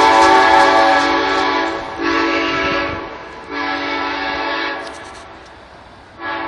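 Horn of a departing Talgo passenger train sounding four blasts: a long one, two shorter ones after short gaps, and a fourth starting near the end. Each blast is a chord of several steady tones, and the horn grows fainter as the train draws away.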